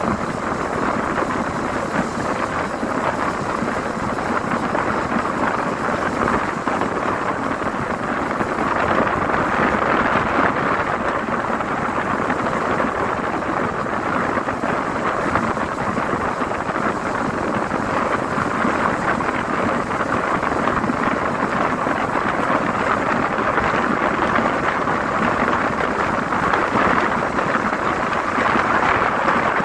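Steady rush of wind and road noise inside a moving vehicle, heard at an open side window, swelling slightly now and then.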